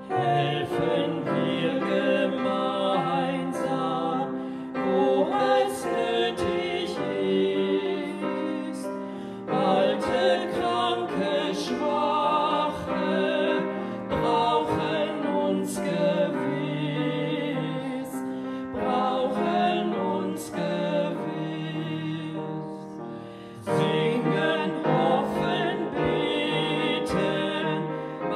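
Upright piano accompanying a man and a woman singing a song together, with fresh phrases starting after brief dips about a third and four-fifths of the way through.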